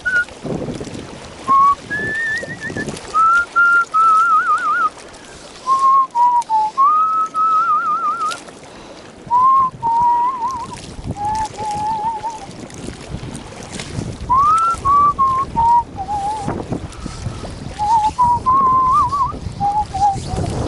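A man whistling a tune in short phrases, some notes held steady and others warbling in quick trills, with wind buffeting the microphone.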